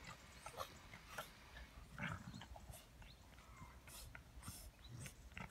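An adult chow chow and a chow chow puppy play-fighting, mouthing at each other's heads, heard as faint, scattered short snuffling and scuffling noises.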